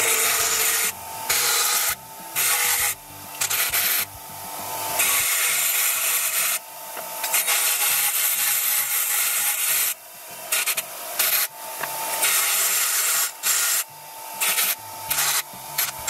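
Ryobi 150 mm bench grinder running while high-tensile steel bolts are ground down to length against its wheel: a loud grinding hiss in a series of passes broken by short pauses, over the steady tone of the motor.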